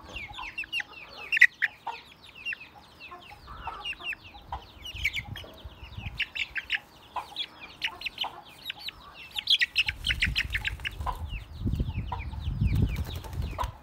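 Young Aseel chicks peeping over and over, short falling peeps several a second. A low rumbling rustle joins in near the end.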